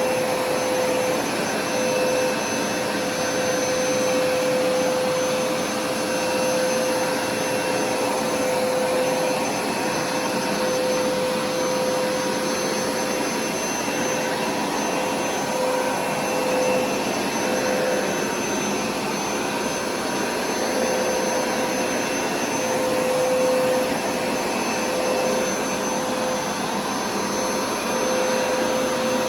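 Hoover carpet cleaner running steadily, its motor giving a continuous noise with a steady hum.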